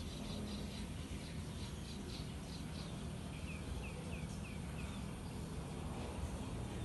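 Steady outdoor background hum with faint, high bird chirps: a string of short, evenly spaced chirps over the first few seconds, then five quick falling chirps around the middle.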